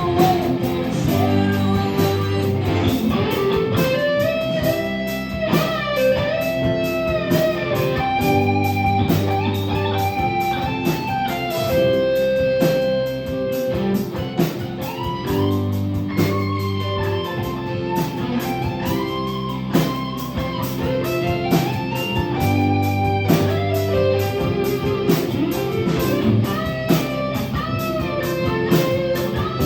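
Rock band playing an instrumental passage: electric guitar lead with bending notes over bass and drums.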